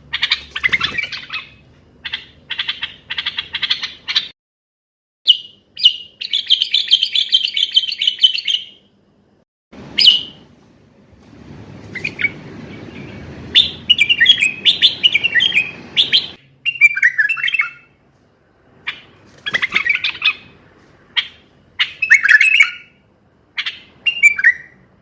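Common bulbul singing: short, repeated bursts of chattering, warbling phrases with brief silent gaps between them, and a low background rumble for a few seconds in the middle.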